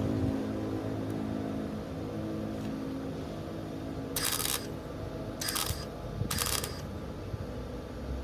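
Cutting torch working on the rusty steel framing of a bus wheel arch, hissing in three short bursts about a second apart, over a steady low hum.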